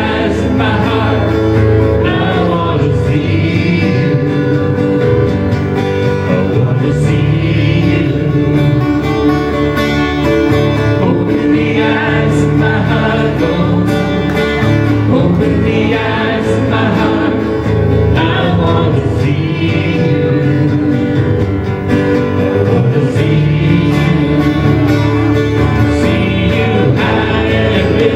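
Live church worship band playing a song, with singing over guitar, bass and drums.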